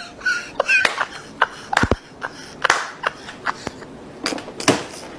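Street background with scattered sharp clicks and knocks and brief snatches of voices.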